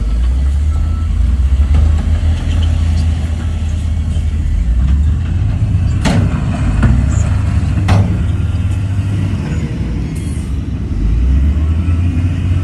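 Heavy diesel engine of earthmoving machinery running steadily with a deep rumble, broken by two sharp metallic clanks about two seconds apart midway through.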